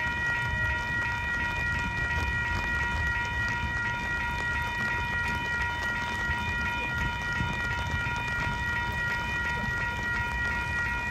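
Railroad crossing warning bell ringing steadily, with a low rumble underneath.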